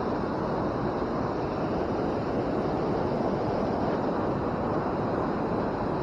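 Steady rushing of water at a creek waterfall.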